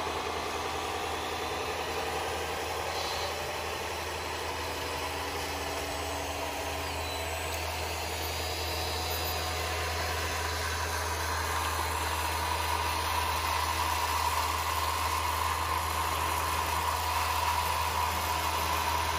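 Steady engine idling from radio-controlled construction models: a low, even hum, with a higher whine that grows stronger in the second half.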